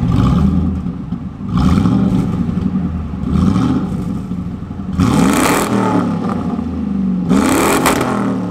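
Ford F-150 Lightning replica pickup's engine being revved repeatedly, its pitch climbing and dropping back several times in quick succession.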